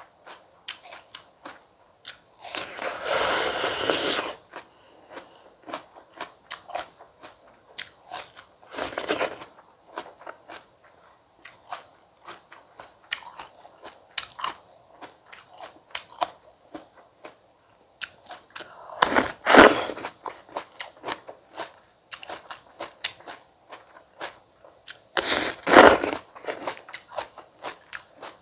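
Close-up sound of a person biting into and chewing fresh fruit, with a steady run of small wet chewing clicks. Four louder crunchy bites come at about 3, 9, 19 and 26 seconds in, the first one drawn out for over a second.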